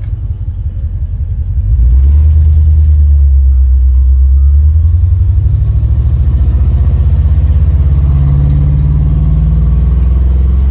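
Car engine running through its newly worked exhaust with a deep, pulsing exhaust note, getting much louder about two seconds in and holding there.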